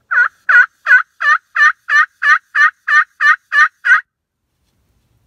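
Homemade turkey pot call worked with a wooden striker, running a series of about a dozen evenly spaced yelps, roughly three a second, each note breaking downward in pitch, in imitation of a hen turkey. The yelping stops about four seconds in.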